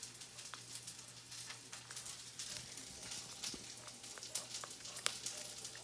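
A puppy chewing and mouthing a raw Brussels sprout on the floor: irregular small crunches and wet clicks, close to the microphone.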